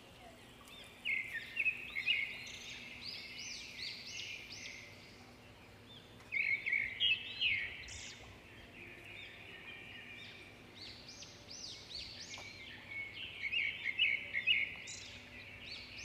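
Songbirds chirping and singing in bouts of quick, high, arching notes, over a faint steady outdoor background.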